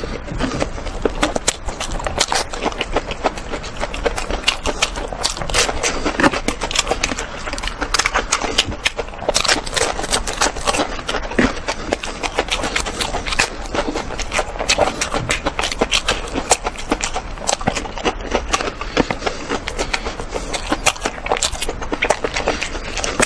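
Close-miked eating sounds: crunchy chewing of crispy breaded nuggets, a dense, unbroken run of crackles and wet mouth clicks.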